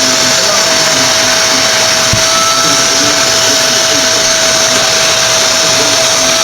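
Bennett Read vacuum cleaner running steadily, a loud constant rushing with a steady whine.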